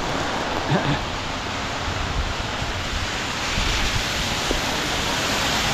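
Steady rain hiss and patter on an umbrella held just overhead, with a low rumble beneath it; the hiss grows a little brighter about halfway through.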